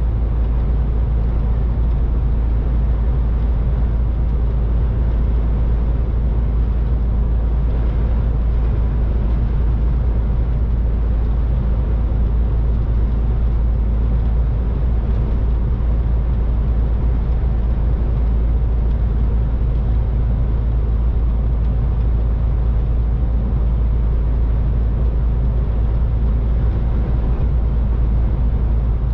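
MAN TGX 18.510 semi-truck driving, its six-cylinder diesel and the road noise making a steady, deep drone with no change in pitch.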